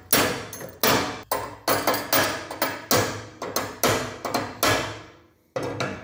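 Hammer tapping a bicycle chain pin back into its link, a run of about fifteen metal-on-metal strikes at roughly three a second, each ringing briefly, with one last strike after a short pause near the end.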